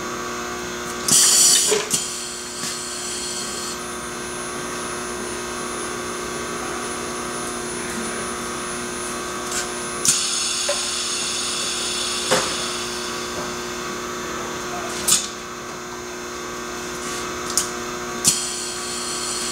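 Seat assembly carousel and its fixtures at work: a steady machine hum broken by several sharp clicks and clunks and three short spells of high hiss, the loudest about a second in, another about halfway through and one near the end.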